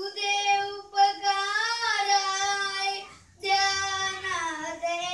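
A young boy singing solo, with no instruments, in two long phrases of held, slightly wavering notes and a short breath between them about three seconds in.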